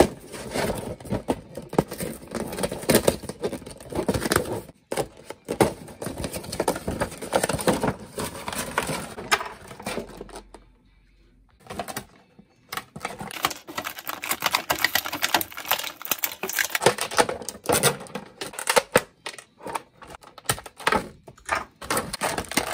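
Action-figure packaging being opened and handled: cardboard box flaps and a clear plastic blister tray crinkling and crackling in a dense, irregular run of clicks and rustles, with a pause of about two seconds around the middle.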